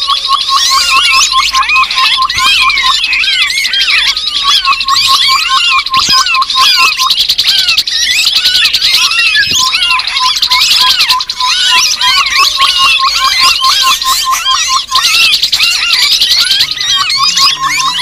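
Bird-trapping lure recording of grey-headed babblers (tepus kepala abu-abu): a dense, unbroken chorus of many overlapping chattering calls. Beneath it runs a rapid string of short notes held at one pitch.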